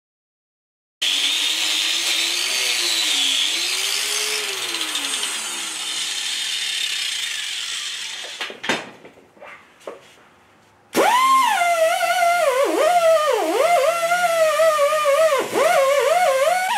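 A handheld power tool, used to clean a bare engine block, whirring against the metal. After a short pause with a few knocks, the motor's pitch sags and recovers again and again as it is pressed into the work.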